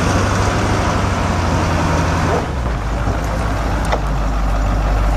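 Detroit Diesel 8.2L turbo diesel engine in a Chevrolet C70 grain truck, running steadily. About halfway through, the engine note drops and becomes less hissy, as if the throttle were eased back toward idle.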